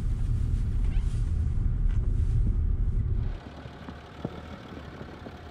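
Land Rover driving on a snow-covered road, heard from inside the cabin as a steady low rumble. About three and a half seconds in, it cuts off suddenly to a much quieter low hum with a few faint clicks.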